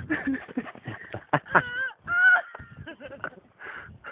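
A dog making several short, high-pitched whining and yelping calls that waver in pitch, the loudest about two seconds in, among scuffling and clicking noises.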